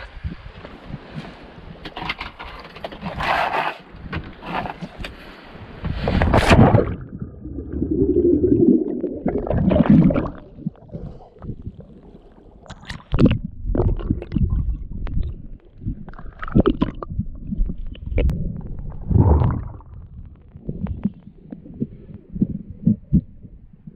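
A diver splashes into the sea about six seconds in. After that the sound goes muffled: low water sloshing and bubbling around a camera at and below the surface, with scattered sharp knocks.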